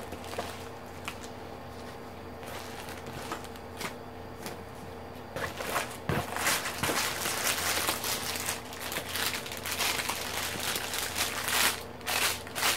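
Plastic packaging rustling and crinkling as it is handled, sparse at first. From about five seconds in it turns into dense, continuous crinkling of the small plastic bags of round diamond-painting drills.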